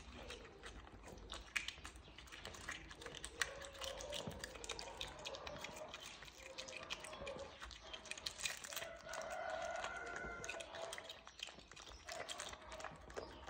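A raccoon gnawing and licking at a chicken egg: a rapid, irregular stream of small wet clicks and crunches of teeth and tongue on the eggshell. Faint drawn-out calls sound in the background a few times.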